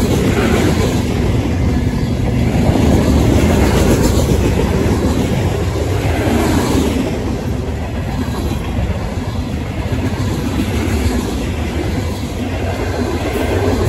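Union Pacific mixed freight train's cars (covered hoppers, boxcars, gondolas and tank cars) rolling past close by: a steady noise of wheels on rail, loudest a few seconds in and easing a little after that.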